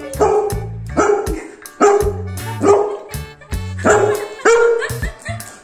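Golden retriever barking repeatedly, about two barks a second, at a toy puppy held up out of its reach.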